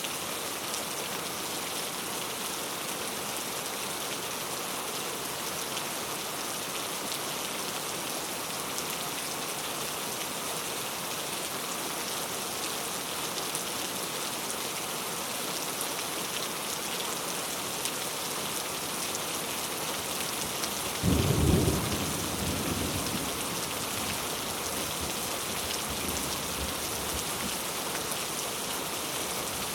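Heavy rain falling with a steady hiss. About two-thirds of the way through, a sudden low rumble of thunder breaks in and dies away over a few seconds.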